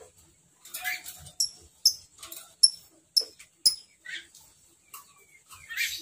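Lovebird giving short, shrill chirps, a run of about five evenly spaced calls at roughly two a second in the middle, with other scattered chirps around them.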